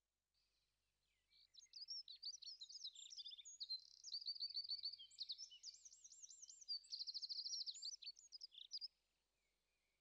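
A songbird singing one long, varied song of quick chirps, looping notes and fast trills, starting about a second in and ending near the end.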